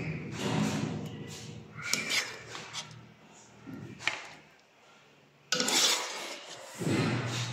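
A plastic ladle scraping and knocking against a ceramic plate as tomato-sauced fried fish and sauce are spooned onto it, in several separate strokes with a sharp click about four seconds in and a louder rubbing noise about five and a half seconds in.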